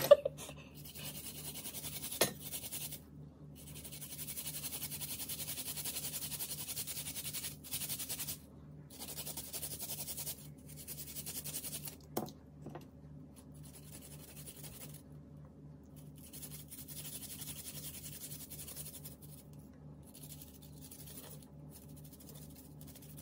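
A garlic clove being grated by hand on a clear plastic garlic grater: quick back-and-forth scraping strokes in runs, with short pauses and a couple of sharp knocks of plastic.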